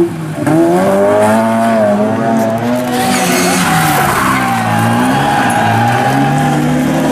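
Rally car engine revving hard, its pitch rising and falling with the throttle and gear changes, with a short lift just after the start. Tyre and skid noise joins from about three seconds in.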